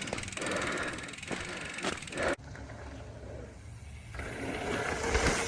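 Mountain bike riding over a dirt trail: tyre and trail noise with rattles and knocks from the bike, cutting off abruptly about two and a half seconds in, followed by quieter riding noise.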